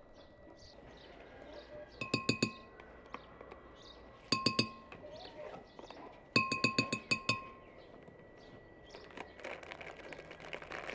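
A metal spoon tapping quickly against a glass blender jar, in three short runs of ringing clinks about two seconds apart, with faint birdsong behind.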